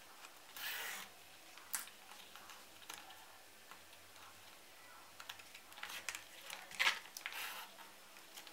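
Hand saddle-stitching leather with two needles: thread drawn through the punched stitching holes in a few short swishing pulls, with light clicks and rustling of the leather, the loudest click about seven seconds in.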